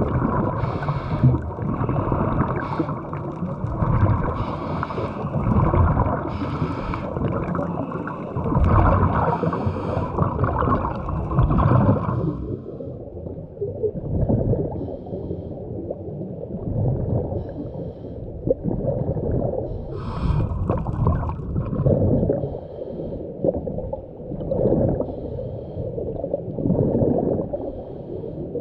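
Muffled underwater sound of a diver's breathing and exhaled bubbles gurgling, rising and falling in irregular swells every two to three seconds. It is hissier for about the first twelve seconds, then duller.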